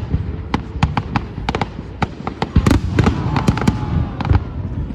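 Aerial fireworks display: a rapid run of sharp cracks and bangs, several a second, over a continuous low booming rumble, densest around the middle.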